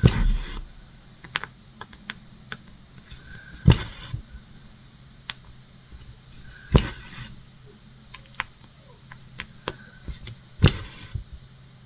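Cross-stitch needle and thread being worked through fabric held taut in a clamped frame: a sharp tap or pop every three to four seconds, with small clicks and rustles in between.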